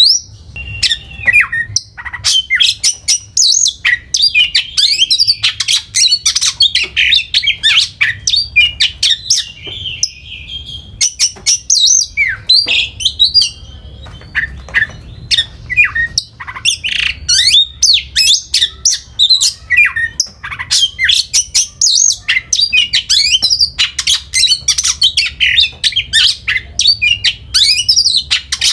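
Songbird singing a fast, unbroken string of chirps, trills and harsh notes, as used in a masteran recording for training caged birds, over a low steady hum.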